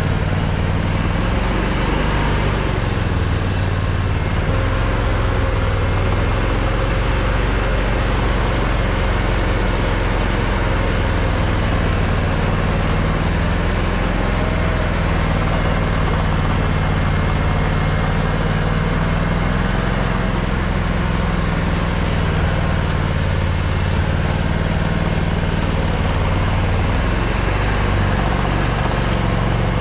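Argo Aurora 8x8 950 amphibious ATV's engine running steadily under load, its pitch slowly rising and falling as the throttle changes.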